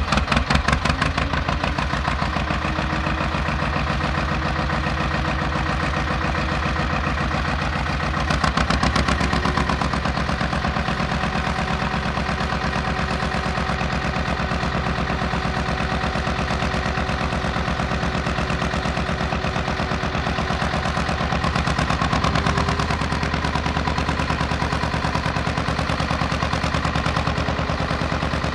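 A canal longboat's 16 H.P. Petter engine, heard on board, running with a steady rapid firing beat. It picks up briefly about eight seconds in and again around twenty-two seconds, then settles back.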